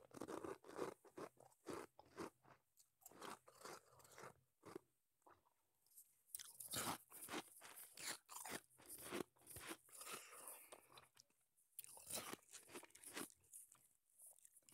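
Close-miked crunching and chewing of soft shaved ice in a person's mouth: a quick, irregular run of crisp crunches.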